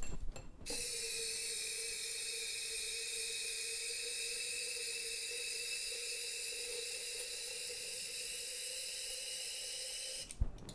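Aerosol contact cleaner sprayed in one long continuous burst, a steady hiss with a faint steady tone under it, starting just after the beginning and cutting off suddenly near the end.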